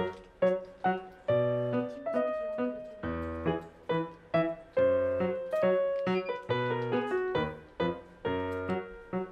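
Background music: a piano playing a bouncy line of chords over bass notes, each note struck and fading.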